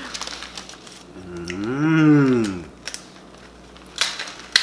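Cooked crab shells being cracked and snapped apart, with crunchy clicks at the start and a sharp cluster of cracks near the end. In the middle a person gives one drawn-out hum of enjoyment that rises and falls in pitch, the loudest sound here.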